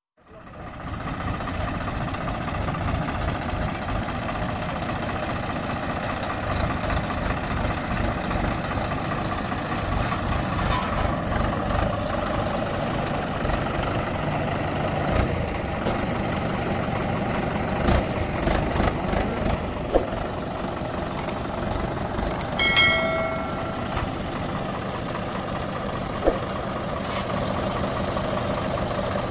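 Diesel tractor engines running steadily, a red Mahindra and a Swaraj 744 FE, with scattered clicks and knocks. A short beep sounds a little past the middle.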